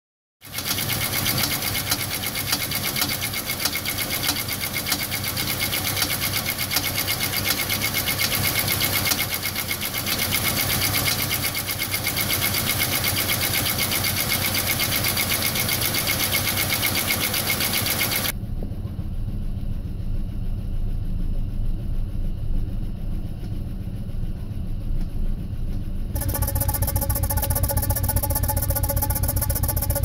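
GM 3100 (3.1 L) V6 engine idling steadily but not firing on all cylinders, which the owner puts down to warped and cracked cylinder heads. The sound dulls partway through, and near the end it is heard at the tailpipe as an even pulsing exhaust beat.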